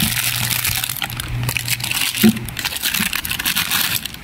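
Plastic bag crinkling and a cardboard box rustling as they are handled, an irregular crackle of many small ticks over a low steady hum.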